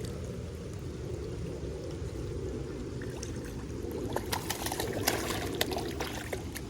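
Water sloshing and trickling as a hooked channel catfish is brought in at the water's edge, with scattered short clicks and splashes from about four seconds in.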